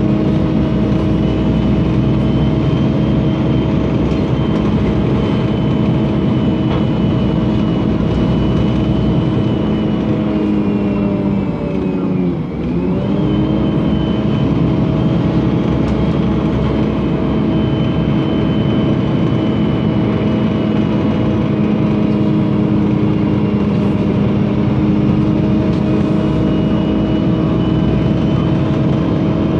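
MAN NL 273 T3 LPG city bus's gas engine running steadily, with a hum of several steady tones. About twelve seconds in the pitch briefly sags and the level dips, then both recover.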